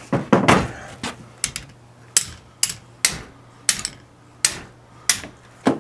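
Sharp metallic clicks and taps, about a dozen at roughly two a second, each ringing briefly: a hand wrench working the ring gear bolts loose on a Dana 44 differential carrier.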